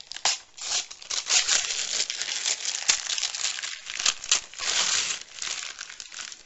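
Red gift-wrapping paper crinkling and tearing as a small present is unwrapped by hand, busiest from about a second in and again around five seconds.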